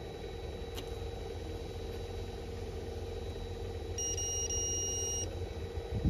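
A digital multimeter's continuity beeper sounds one steady high beep of just over a second, about four seconds in, as the probe touches a connector pin. Under it runs a steady low hum.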